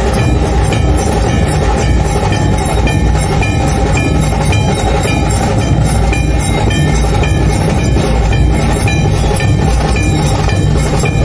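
Dhol tasha ensemble drumming: many large dhol barrel drums beaten with sticks, with tasha drums on top, in a dense, steady, driving rhythm with regular sharp strokes.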